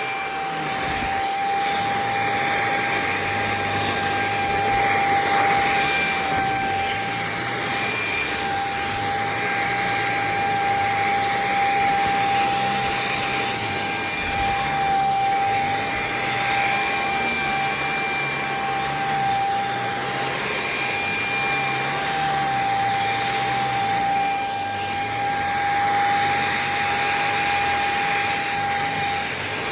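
JPHYLL corded mattress vacuum running steadily with a high motor whine, its hiss swelling and easing every few seconds.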